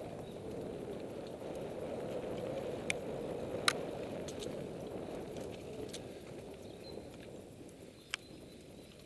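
Mountain bike rolling over a dirt forest singletrack: a steady rumble of knobby tyres and rattling bike, with a few sharp clicks, the loudest about three and a half seconds in and another near the end. It grows quieter over the last couple of seconds.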